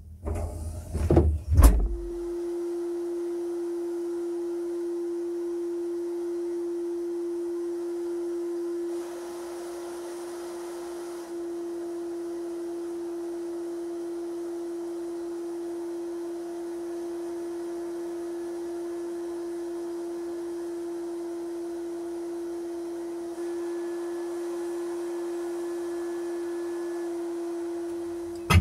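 A few knocks of the cast cannon being set down on a wooden block, then a sandblasting cabinet running: a steady, single-pitched hum with a faint hiss above it, shifting slightly in level a few times.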